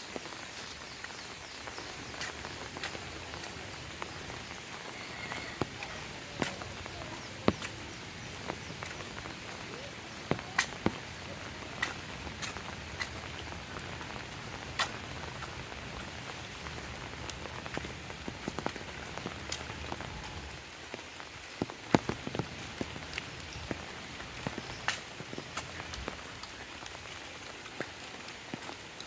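Steady rain falling, with heavy drops striking close by in sharp, irregular ticks and taps, a few of them louder.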